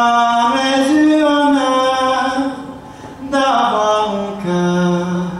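A man singing a traditional Breton song a cappella. Two sung phrases are separated by a short breath, and the second ends on a long held low note.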